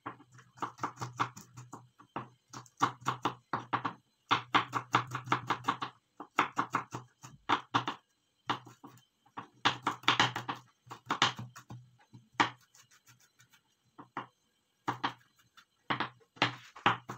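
Kitchen knife slicing garlic cloves on a wooden cutting board: quick runs of sharp taps, broken by short pauses.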